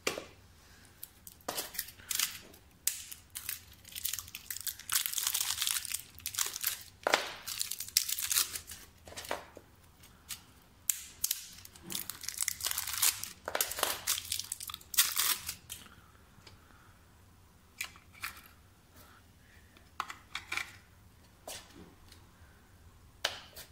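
Clear plastic wrapping crinkling and tearing in irregular scratchy bursts, a few of them drawn out for a second or two, mixed with short sharp clicks of the plastic parts being handled.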